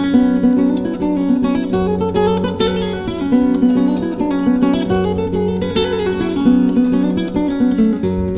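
Solo acoustic guitar played live, plucked melody notes moving over low bass notes that ring on beneath them.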